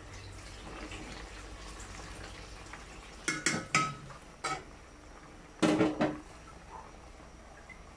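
Metal spoon clinking and scraping against a metal cooking pot while moringa leaves are stirred into the soup: a quick run of clinks about three seconds in, one more soon after, and a longer, louder clatter near six seconds.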